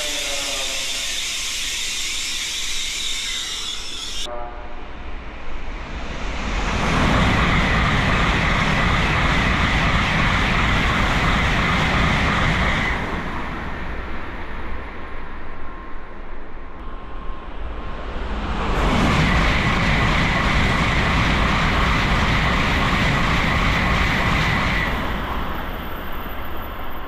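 Tokaido Shinkansen bullet trains passing straight through a station at high speed. Two passes: each is a loud rushing roar that builds over about a second, holds for about six seconds and then fades. The first comes about 6 seconds in and the second about 19 seconds in, with the fading tail of an earlier train at the start.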